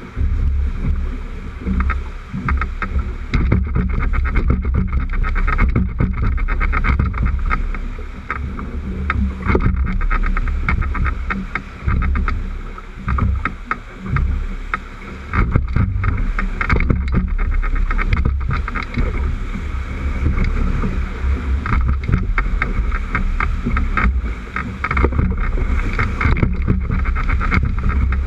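Whitewater rapids rushing and splashing around a drift boat as it is rowed downriver, with a heavy low rumble on the microphone.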